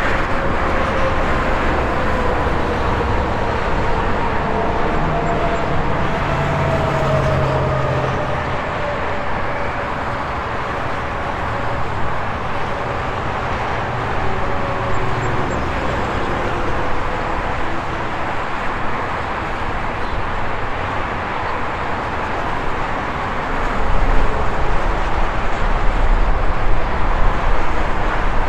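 Steady highway traffic noise of cars and trucks passing, tyre roar with engine tones that drop slowly in pitch as vehicles go by. A heavier, louder low rumble builds near the end as a large vehicle draws close.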